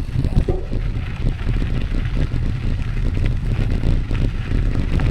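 Wind rumbling on the microphone of a bicycle ride, a steady low buffeting with road and tyre noise under it.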